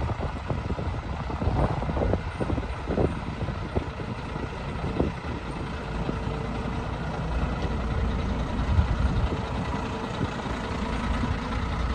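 1995 International 4700 tank truck's engine running at low speed as the truck drives slowly across gravel, growing louder about halfway through as it swings round toward the listener.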